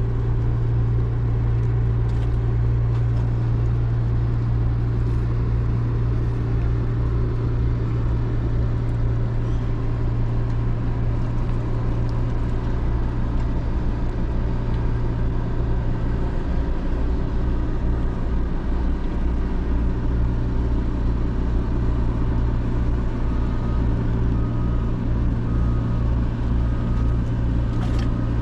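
Steady low drone of a large car-carrier ship's engines as it passes close by, with a faint repeating high beep near the end.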